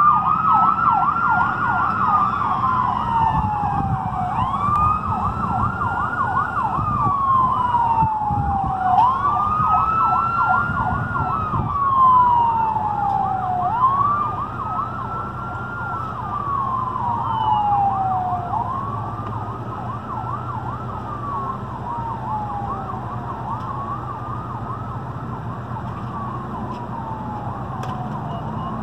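Ambulance siren on the move: a slow wail that rises quickly and falls slowly about every five seconds, with a fast yelp running over it. It fades as the ambulance drives away, over a low road rumble.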